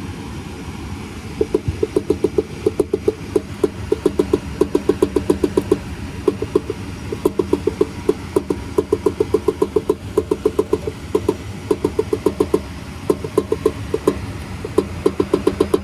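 Goodman gas furnace running with a fast metallic rattle, several knocks a second, coming in runs with short pauses over a steady running hum. The technician takes it for something loose in the heat exchanger, with the blower shaking badly.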